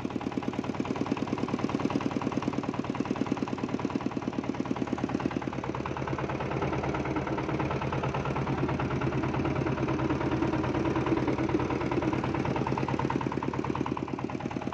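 Fishing boat's engine running steadily with a fast, even chug.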